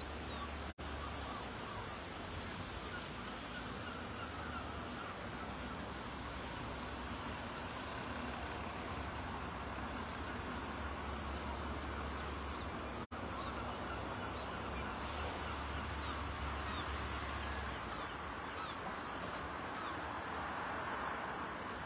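Steady outdoor ambience: an even wash of noise with a low rumble underneath and a few faint bird calls. The sound drops out for an instant twice.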